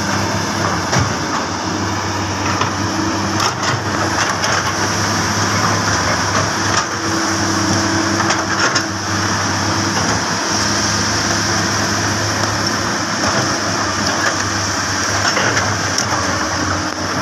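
Komatsu PC200 hydraulic excavator's diesel engine running steadily close by as the machine works its boom, with a few scattered knocks.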